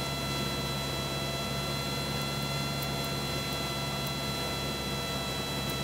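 Cessna 172's engine and propeller droning steadily in the cabin at reduced descent power, with a steady high-pitched whine over the drone.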